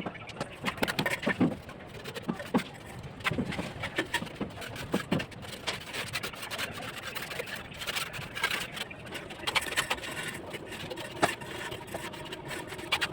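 Bricklaying work: irregular knocks, taps and scrapes of a trowel on bricks and mortar.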